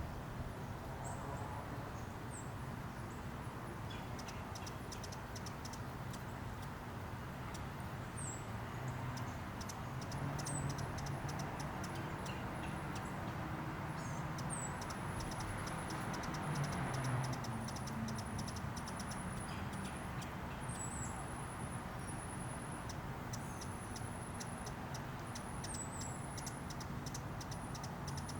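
Steady rain falling, with many short, high, thin chips and twitters from hummingbirds throughout, over a low steady hum.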